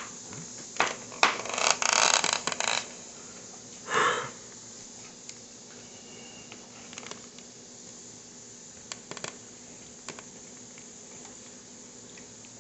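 Metal kitchen knife blades clinking and scraping as they are handled and set down. There are sharp clicks about a second in, a clatter of clinks and scraping for the next second and a half, another scrape about four seconds in, and then only a few faint taps.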